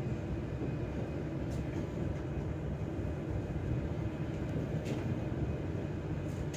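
Steady low rumble of a moving passenger train heard from inside the coach.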